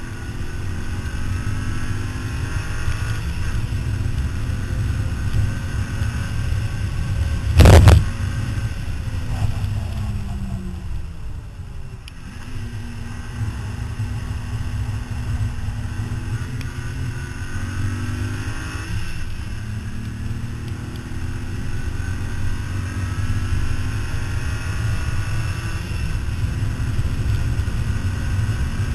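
Car engine at track speed, its pitch climbing through the gears and dropping as the car slows for a corner, over heavy wind and road noise. A loud thump about eight seconds in.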